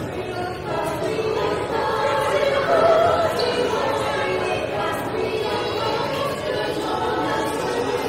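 A vocal ensemble singing together, several voices held in sustained harmony.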